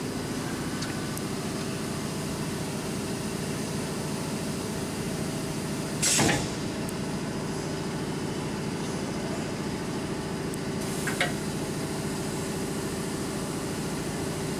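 Amada Aries 245 CNC turret punch running with a steady hum. About six seconds in there is a short, loud burst of noise, and about eleven seconds in a single sharp clack, while the tool turret indexes to a new station.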